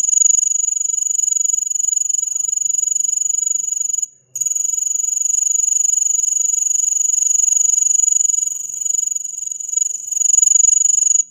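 Cricket singing: a loud, continuous high-pitched trill that breaks off briefly about four seconds in, resumes, and stops abruptly near the end.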